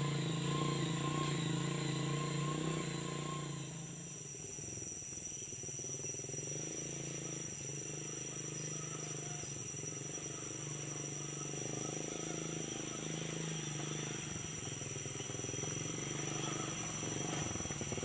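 Small motorcycle engine running while hauling a load of oil palm fruit bunches. From about three and a half seconds in, a steady high-pitched insect drone takes over, with the motorcycle engine running under it and growing stronger as it comes nearer toward the end.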